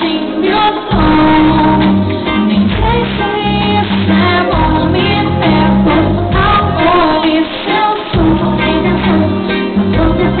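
Live pop music with a woman singing over a heavy bass beat and band, with crowd voices possibly mixed in; the sound is dull, with no high end.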